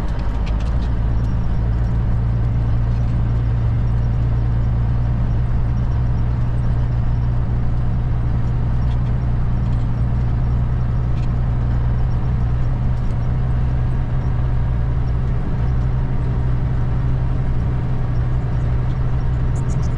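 Truck engine running steadily, a constant low drone with no change in speed.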